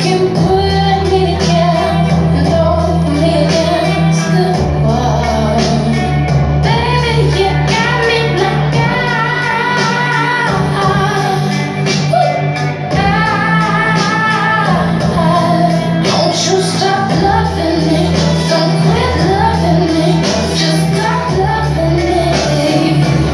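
A song with a woman singing over instrumental backing; her long held notes waver with vibrato.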